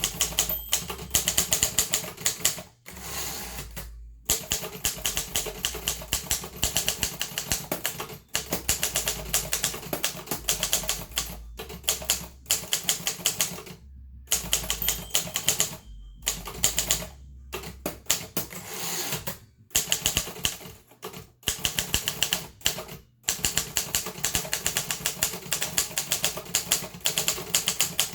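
Harris Visible No. 4 typewriter being typed on: a rapid run of key strikes, several a second, broken by a few brief pauses.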